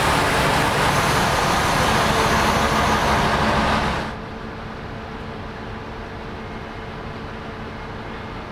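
ALn 668 diesel railcar, heard loud and close beside its carriages for about four seconds. Then the sound drops suddenly to a steadier, quieter engine hum as the railcar stands idling at the platform.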